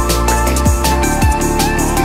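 Electronic background music with a steady beat of deep kick drums that fall in pitch, crisp hi-hats and sustained synth tones.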